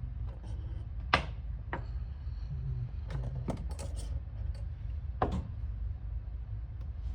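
A scattering of sharp knocks and clicks from objects being handled or set down, about seven in all, the loudest about a second in and another just after five seconds, over a low steady hum.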